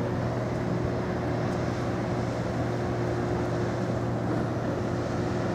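Ferry Commodore Goodwill's engines running as she passes: a steady low hum with a fixed higher tone above it, over a wash of noise.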